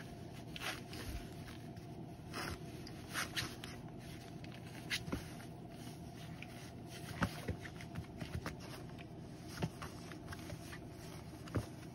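Two young Pharaoh Hound puppies wrestling on a blanket: soft scuffling and scratching of paws and bodies, with scattered light taps, over a faint steady hum.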